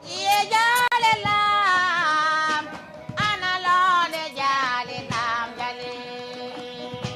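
A high voice singing two long phrases with bending, drawn-out notes over a hoddu, a small Fula plucked lute with a metal jingle plate; after the second phrase, about five and a half seconds in, the lute carries on alone with a steady repeated note.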